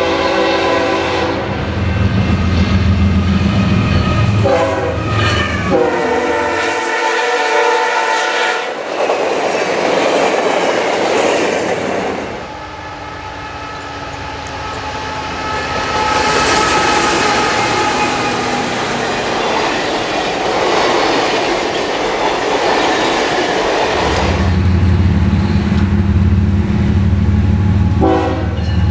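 Diesel passenger locomotive with its engine running heavily, sounding its multi-chime air horn at the start and then in two blasts around five to eight seconds in, the second longer. Train cars then roll past with a steady rushing wheel noise. A locomotive engine and horn come back near the end.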